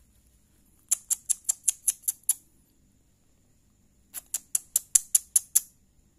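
Two quick runs of sharp, high clicks, about eight in each at roughly seven a second, the first about a second in and the second about four seconds in.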